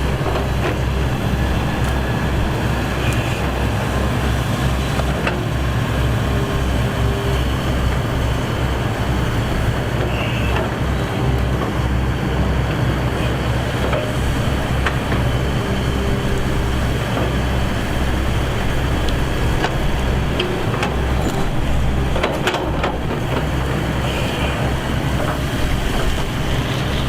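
Excavator's diesel engine running steadily, a low heavy drone, with a few sharp knocks about three-quarters of the way through.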